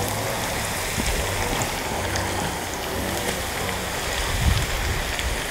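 Freshly added marinated beef pieces and sliced onions sizzling in hot vegetable oil in a frying pan: a steady hiss with fine crackles throughout.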